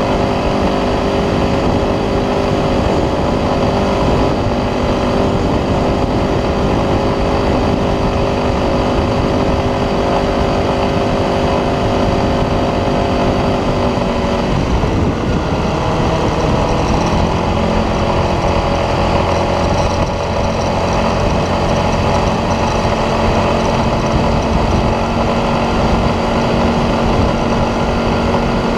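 ATV engine running under way, steady at first; its pitch drops about halfway through and then holds steady at the lower pitch.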